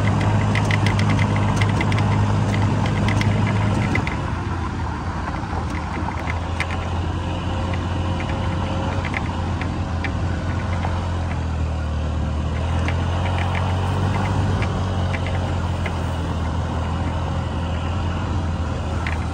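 Small scooter engine running under way on a gravel road, with a scatter of sharp ticks over its hum. About four seconds in the engine note drops and settles to a steady lower hum.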